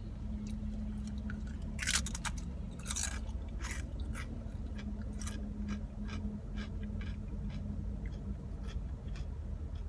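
Close-up chewing and crunching of crisp food, a run of short crunches with the loudest about two and three seconds in, over a steady low hum.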